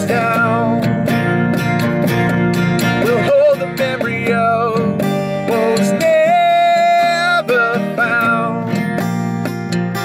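Acoustic guitar strummed steadily in a live performance of a song, with a voice singing a held, wavering melody over it, including one long held note about six seconds in.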